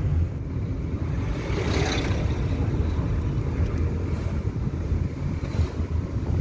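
Car driving along a road: a steady low rumble of engine and tyres with wind noise, and a brief rush of noise about two seconds in.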